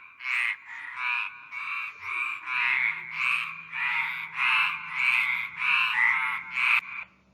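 A frog calling: a run of about a dozen croaks, roughly one and a half a second, each a quick rattling trill, stopping near the end.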